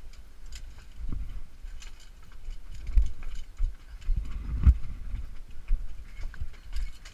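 Footsteps of several people going up wooden stairs: irregular thuds and knocks on the wooden treads.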